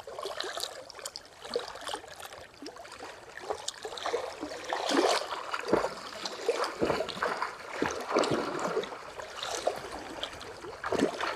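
Lake water splashing and lapping in irregular bursts as a swimmer strokes through small waves.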